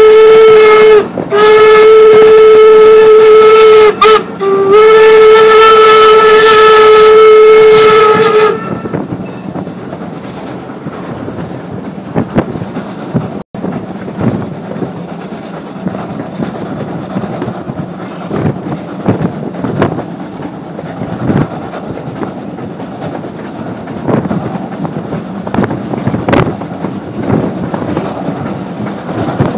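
Steam locomotive whistle, most likely #90, a 2-10-0, blowing very loud at a steady pitch: a long blast, a longer one, a brief one and a final long blast, the long-long-short-long grade-crossing signal. It stops about eight seconds in, leaving the rumble of the passenger car rolling, with wheels clicking over rail joints every second or two.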